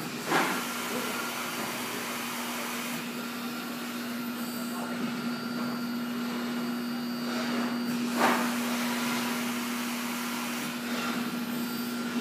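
Robotic truck-unloading machine running: a steady mechanical drone with a constant low hum, broken by two sharp knocks, one just after the start and another about eight seconds in.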